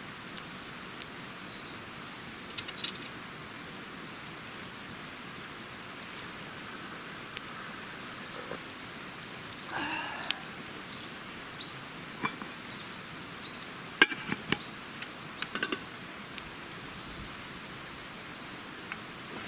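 Steady patter of rain, with scattered sharp clicks and knocks and, midway, a run of short falling chirps.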